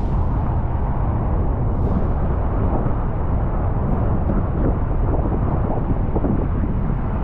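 Steady, loud roar of rushing water from the Niagara River and falls, heaviest in the low rumble, with no breaks.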